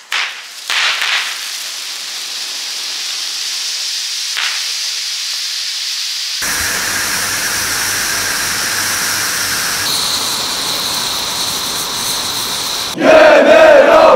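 Hand-held red flares burning with a steady hiss. Near the end a crowd breaks into loud shouted chanting.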